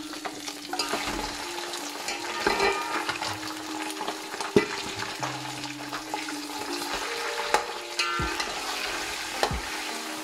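Freshly added raw beef chunks sizzling as they fry in hot oil and ghee in a large metal pot. A steel ladle stirs them, clinking sharply against the pot several times, loudest about halfway through.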